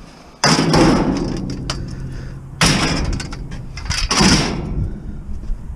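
Scrap metal crashing and clattering into a steel bin three times, about half a second in, at about two and a half seconds and at about four seconds; each crash rings on briefly.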